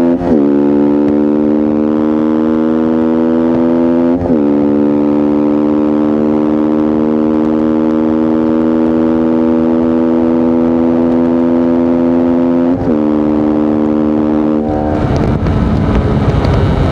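Voge 125R's single-cylinder 125 cc engine pulling under throttle, its note climbing slowly in each gear and dropping sharply at upshifts, just after the start, about four seconds in and near thirteen seconds. About fifteen seconds in the steady engine note breaks up into a rougher, noisier sound.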